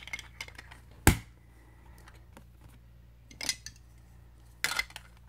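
Plastic Lego Duplo bricks clicking and knocking as they are handled and pressed together, with one sharp snap about a second in and a few lighter clicks later.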